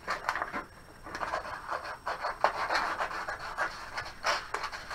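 Scissors cutting through a sheet of A4 paper in a series of snips, with the paper rustling as it is handled.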